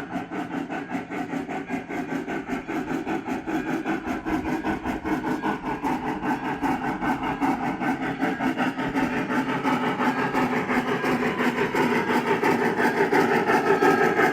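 Lionel 4-4-2 Atlantic G-scale locomotive's TCS WOW501-Steam sound decoder playing rapid, even steam chuffs through its speaker as the engine runs, growing steadily louder as it comes closer.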